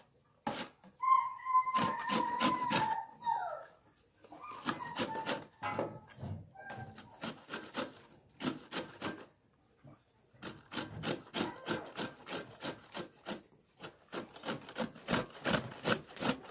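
Raw beetroot being grated by hand on a stainless-steel box grater: repeated rasping strokes, about two to three a second, with short pauses and loudest in the last few seconds. A high, gliding call sounds in the background from about one to three and a half seconds in.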